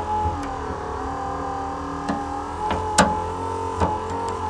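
Steady droning vehicle-engine sound, held at an even pitch, with a few sharp clicks and knocks over it, the loudest about three seconds in.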